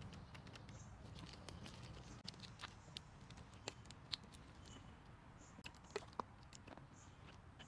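Faint, scattered clicks and ticks of a folding hex key turning screws in a machined aluminium slingshot frame, with light handling of the metal parts; a few sharper ticks come about four and six seconds in.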